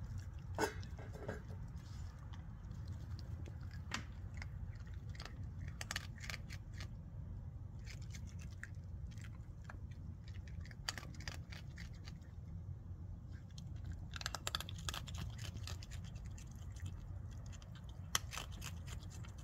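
A raccoon crunching dry pet kibble, in scattered bursts of short crackling chews, over a steady low background rumble.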